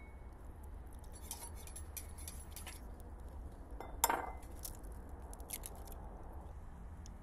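An egg cracked sharply once against the rim of a ceramic bowl about four seconds in, followed by small clicks of shell. Before it, light clinks of a ceramic cup and bowl.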